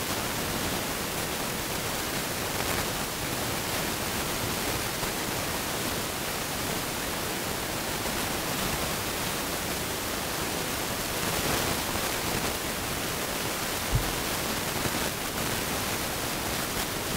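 Steady hiss throughout, with faint sounds of trading cards sliding as they are shuffled through by hand and one brief low thump about 14 seconds in.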